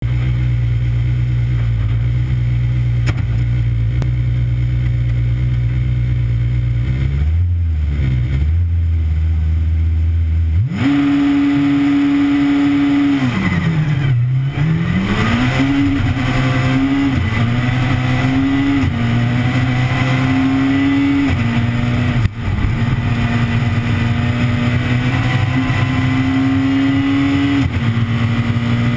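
Peugeot 207 S2000 rally car's engine heard from inside the cockpit: a low steady note for about ten seconds, then revs jump high and the car accelerates hard, the engine note climbing and dropping back with each of several quick upshifts. A single sharp knock comes about two-thirds of the way through.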